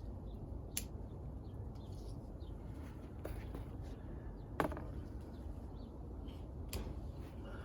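A few short, sharp knocks from handling, the loudest a little past halfway, over a low steady rumble.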